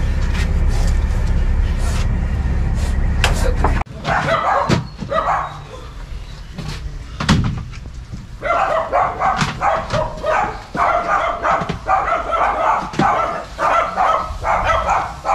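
A dog barking repeatedly, about two barks a second, through the second half. Before that there is a steady low hum that cuts off suddenly about four seconds in, then scattered knocks, the sharpest near the middle.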